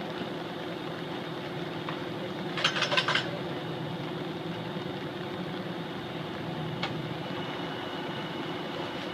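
A fire engine's motor running steadily at idle, with a brief rapid clatter of clicks about three seconds in and a single faint click later on.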